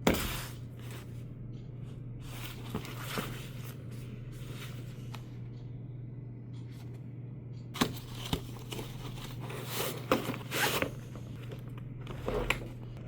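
Unboxing handling noises: scraping and rustling of packaging and a tool case, with several sharp clicks, the busiest stretch in the second half. A steady low electrical hum runs underneath.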